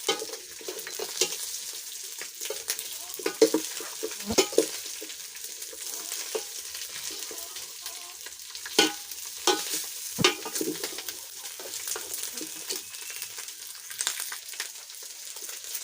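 Boiled chicken pieces sizzling as they fry in their own fat over low heat, with scattered knocks and scrapes as the pieces are turned in the pot.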